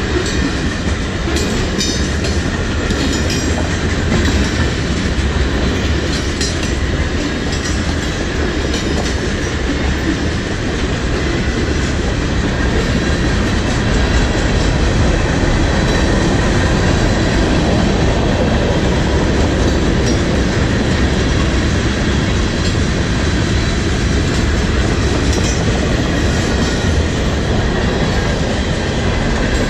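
Freight cars rolling past steadily, covered hoppers and then tank cars, with a continuous rumble and the clatter of steel wheels over the rail joints.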